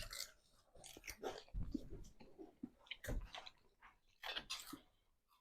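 A person biting into and chewing a hamburger, with faint, uneven chewing noises in short bursts.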